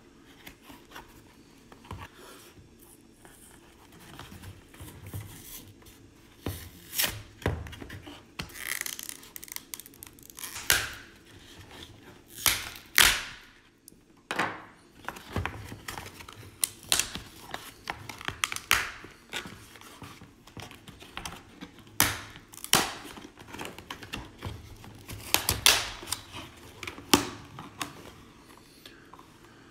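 Hard plastic clamshell blister pack and its cardboard backing being pried and torn apart by hand: irregular sharp crackles, snaps and tearing, loudest about halfway through and again near the end.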